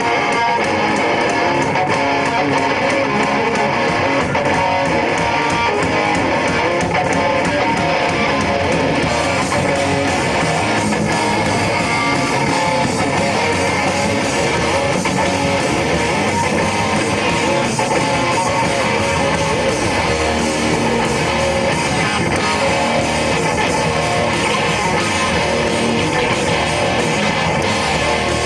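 A rock band playing live, led by strummed electric guitars, in an instrumental passage with no singing.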